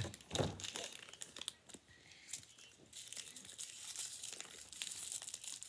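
Small plastic wrappers crinkling and tearing as they are pulled open by hand, a run of quick crackles that gets busier about halfway through.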